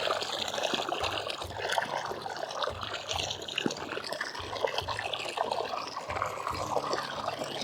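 Water sloshing and trickling in a tub as harvested sweet potatoes are washed by hand, with small irregular knocks and splashes throughout.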